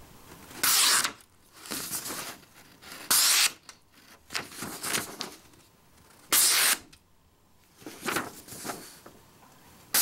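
Four short slicing strokes of a D2-steel folding knife blade through a sheet of printer paper, each about half a second long and roughly three seconds apart, with quieter paper rustling between them. This is the out-of-the-box sharpness test: the edge is slightly thick but slices the paper without trouble.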